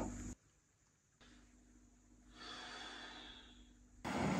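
Near silence: room tone with a faint steady hum, and one soft exhale about two and a half seconds in. Near the end, steady background noise cuts in suddenly.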